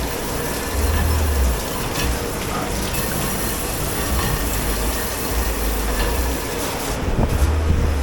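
Steady rushing machine and water noise of a commercial dish pit, with a low rumble swelling about a second in and again near the end, and a few faint clicks.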